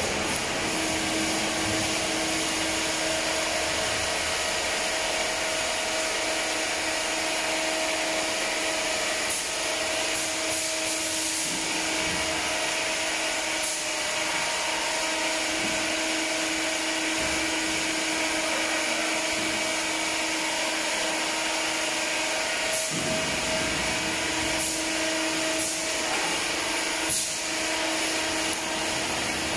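Cooking-oil bottling line running: conveyor and bottle labeling machine giving a steady whirring hiss over a constant motor hum, with a few short sharp ticks as the line works.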